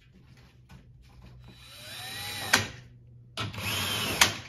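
Cordless impact driver running bolts into a plastic splash shield under a car: two short runs, the first spinning up with a rising whine. Each ends in a sharp click as the bolt seats.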